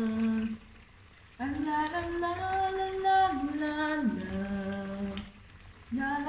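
A woman humming a slow, wordless tune in long held notes that step up and down, pausing twice for breath.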